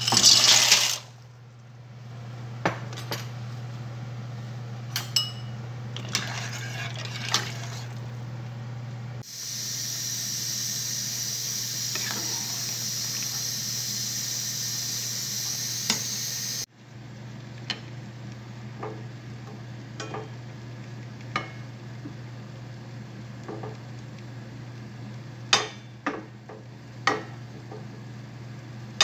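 Cookware sounds while cooking pasta: opens with a loud hiss lasting about a second, then metal utensil clinks and taps on a stainless-steel pan, a steady hiss for about seven seconds in the middle, and more spatula taps and a light sizzle as butter melts in a stainless pan, with a few sharper clicks near the end. A low steady hum runs underneath.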